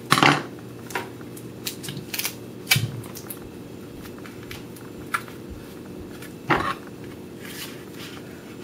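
Paper and tape being handled on a tabletop: scattered short rustles and knocks, the loudest just after the start as a pair of scissors is set down on the table. A steady faint hum runs underneath.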